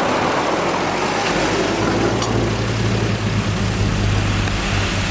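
Diesel engine of heavy earthmoving equipment running steadily under a broad mechanical noise, its deep rumble fading out and coming back about a second in.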